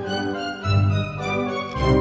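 Background music: a melody stepping downward over low bass notes.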